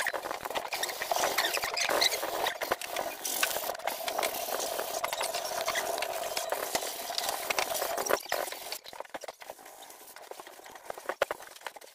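Scratchy hand rubbing and scraping strokes on the surface of an interior door, as prep on its filled patches. The strokes go busily for about eight seconds, then thin out to scattered light scrapes and taps.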